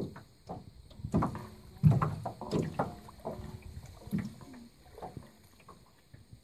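Water sloshing and splashing around people wading waist-deep, in irregular splashes that are loudest about two seconds in.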